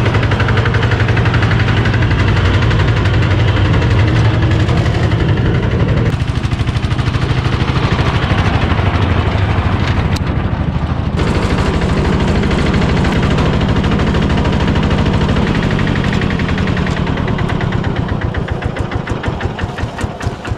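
Old rubber-tracked crawler carrier driving through snow, its engine running under load with a rapid, even firing clatter. The engine sound fades over the last few seconds.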